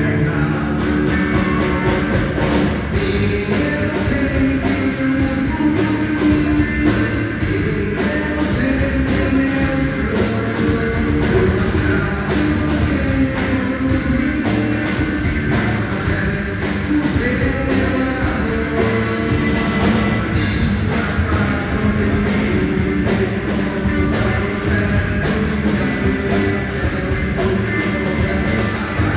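Live rock band playing loud and steady: electric guitars over a drum kit beating a regular rhythm.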